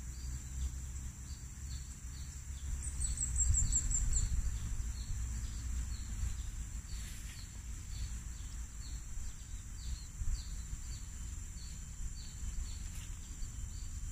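Tropical garden ambience: insects keep up a steady high whine with a short chirp repeating about twice a second, and a bird gives a quick run of high descending notes about three seconds in, over a low rumble.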